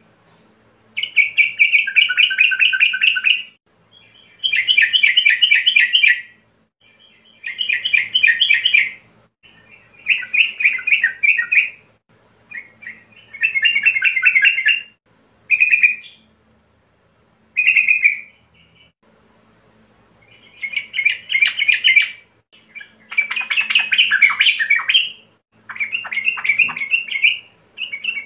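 Male yellow-vented bulbul singing: about ten quick, bubbling phrases of one to two seconds each, separated by short pauses, with a few shorter bursts around the middle. It is a male's song calling out rivals, used as a lure to set other bulbuls singing.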